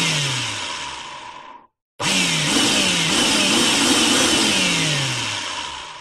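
Electric drill running in two bursts split by a short break, each fading out at the end. The motor's pitch repeatedly sags and jumps back up, several times in the second burst.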